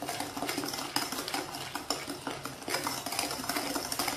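A utensil stirring a thick, sticky honey batter in a glass bowl: a steady run of wet scraping with quick small taps against the glass.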